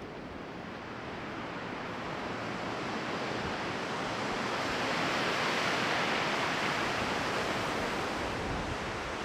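Sea surf breaking against the foot of chalk cliffs: a steady rushing wash that swells to its loudest around the middle and eases off toward the end.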